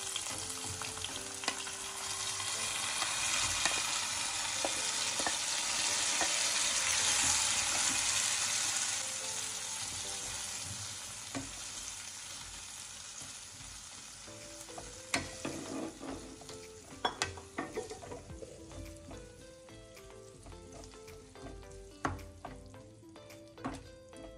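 Chayote pickle mixture poured into hot tempering oil in a kadai sizzles loudly, the sizzle building then dying down over roughly the first dozen seconds. After that, a wooden spatula stirring the pickle gives scattered scrapes and knocks against the pan.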